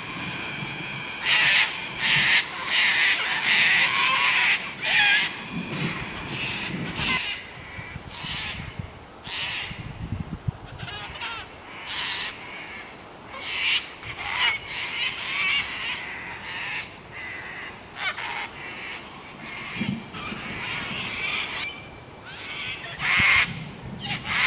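A flock of cockatoos screeching, many harsh calls overlapping and coming and going, loudest in clusters near the start and again near the end.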